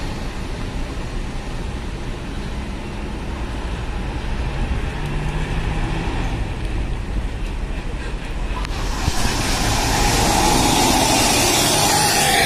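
Diesel engine of a high-deck coach bus running as it pulls away and drives past close by, getting louder about nine seconds in with a rush of engine and tyre noise as it passes.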